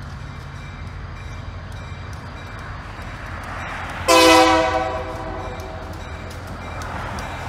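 Approaching diesel freight locomotive running with a steady low rumble. About four seconds in it sounds one short, loud blast on its multi-chime air horn, which fades away within about a second.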